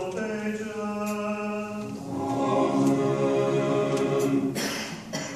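Church choir singing a liturgical response a cappella in harmony: a held chord, then a new, fuller chord about two seconds in, breaking off near the end.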